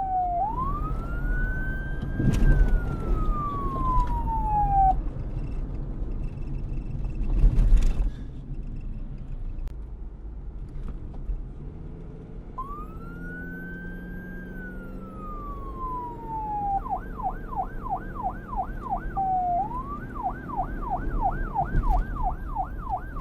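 Police car siren on a slow wail, rising and falling twice with a pause between, then switching to a fast yelp of about three sweeps a second for the last six seconds. A low traffic rumble lies underneath, with two loud bursts of noise, the louder about eight seconds in.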